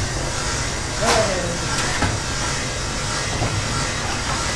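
Steel hand-plough blades sloshing and splashing as they are dipped in a tank of liquid, with one sharper splash about a second in. A steady low rumble of workshop machinery runs underneath.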